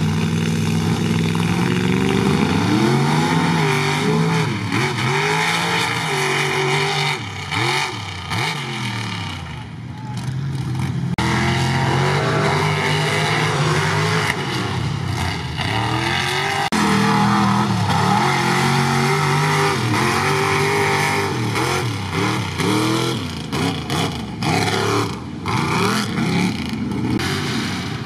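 Ford Explorer-bodied mega mud truck's engine revving hard through a mud pit. Its pitch climbs and drops again and again as the throttle is worked, with a few sudden breaks between runs.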